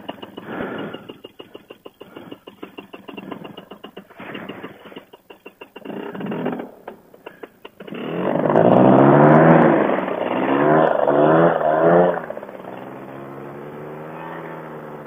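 An engine running and revving up and down several times, then settling to a steadier, lower idle, after several seconds of irregular knocking and clatter from gear being handled.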